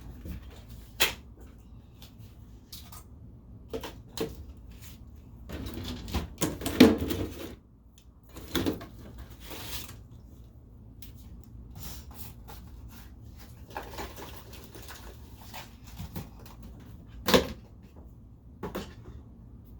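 Scattered knocks, clicks and rattles of plumbing parts and tools being handled and fitted together, with a louder clatter about six to seven seconds in and a sharp knock near the end.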